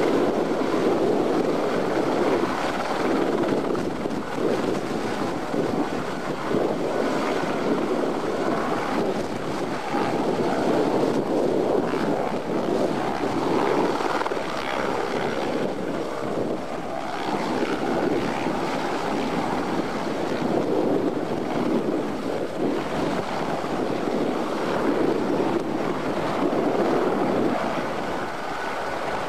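Aérospatiale AS355F2 Écureuil twin-turbine helicopter hovering low to land, its rotor and turbines running steadily, with the level rising and falling in slow swells. Strong wind buffets the microphone.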